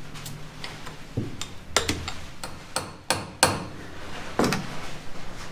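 Hammer blows driving a wedge into the split of a shaft coupling to spread it apart: a series of irregular sharp metallic strikes, a few of them loud, each with a brief ring.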